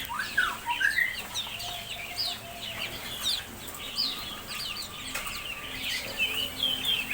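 Many small birds chirping and peeping at once: a dense, overlapping chatter of short, high calls that sweep quickly up and down in pitch.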